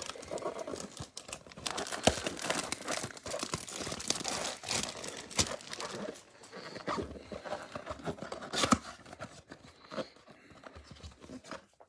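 A trading-card box's packaging being torn open and crinkled: dense tearing and crackling for the first half or so, then quieter handling noises with one sharp snap near the end.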